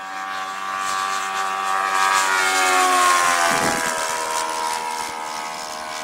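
Radio-controlled model Grumman F6F Hellcat making a low pass. Its propeller engine grows louder, peaks about three seconds in, then drops in pitch and fades as it passes and flies away.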